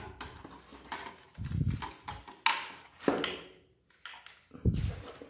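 Two plastic router antennas knocking and clacking as they are handled and set down on a hard surface: a few separate sharp knocks around the middle and a couple of dull thuds.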